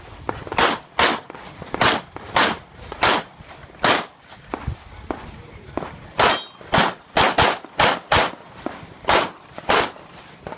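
9mm Glock 17 pistol firing rapid strings of shots, about fourteen in all, with a pause of about two seconds near the middle.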